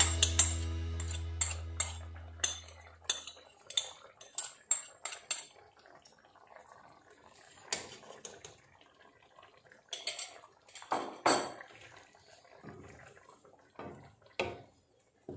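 Utensils clinking and knocking against a bowl and a frying pan while coconut milk is scraped in and the squid is stirred with a wooden spoon: scattered separate knocks, a cluster of louder ones past the middle. Background music fades out over the first few seconds.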